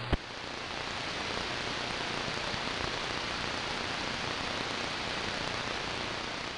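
CB radio receiver hiss: steady static from a channel with no signal on it, opening with a short click.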